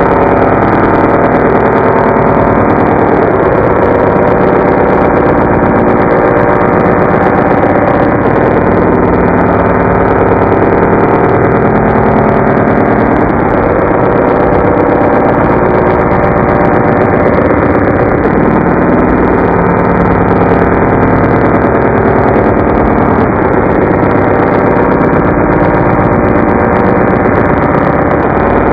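Voice run through a robot vocoder effect and slowed to a quarter of its speed, heard as a loud, continuous mechanical buzzing drone whose tones shift every few seconds.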